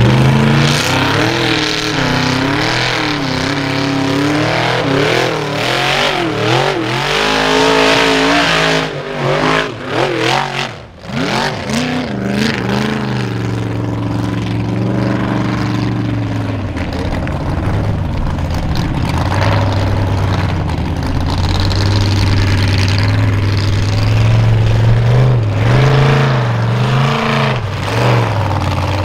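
Formula offroad buggy engine revving hard and unevenly, its pitch swinging up and down as the throttle is worked. About eleven seconds in it drops off briefly, then picks up and revs again.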